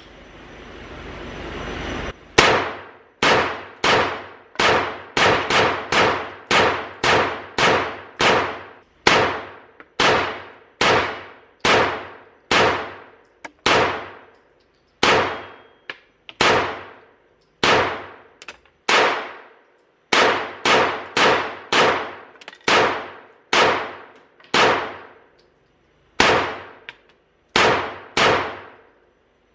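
Glock 43X 9mm pistol fired shot after shot through a 50-round drum magazine, dozens of rounds at a steady pace of about one and a half a second, with a brief pause about halfway. Each shot rings out with a long echo off the walls of the indoor range.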